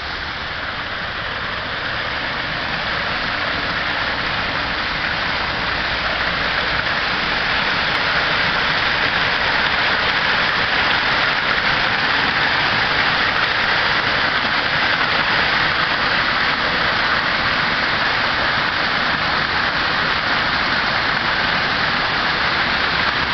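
Waterfall rushing in full flow after heavy rain, a steady roar of falling water that grows louder over the first several seconds and then holds.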